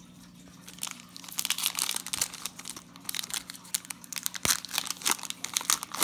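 Plastic wrapper of a 2018 Panini Prestige football card pack being torn open and crinkled by hand. A dense, crackling rustle starts about a second in and goes on as the wrapper is pulled apart.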